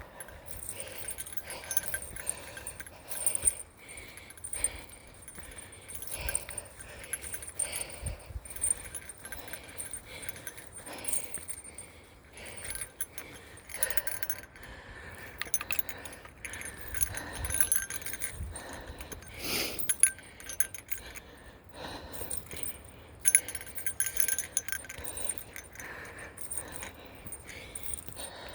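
Small metal bear bell jingling irregularly, shaken by a hiker's steps on a steep trail.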